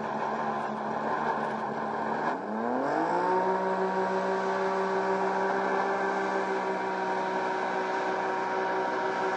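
Hovercraft engine running steadily, then about two and a half seconds in it is throttled up: the pitch climbs quickly over about half a second and holds at a higher, steady speed.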